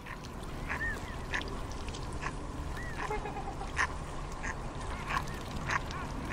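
A flock of mute swans with a few mallards calling on the water: about a dozen short, scattered calls, some rising and falling in pitch, over steady background noise.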